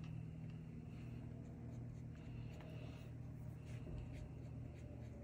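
Faint, soft swishes of a watercolor brush stroking wet paint onto paper, a few strokes spaced about a second apart, over a low steady hum.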